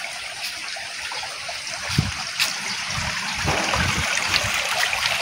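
Water running and trickling along a narrow concrete channel: a steady rushing hiss, with a few dull low thumps about two seconds in and again near four seconds.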